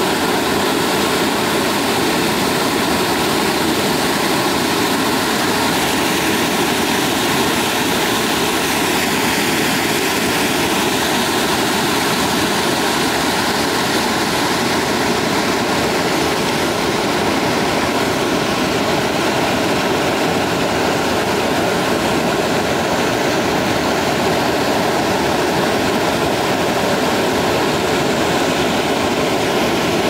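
Loud, steady rush of white water cascading over and between boulders.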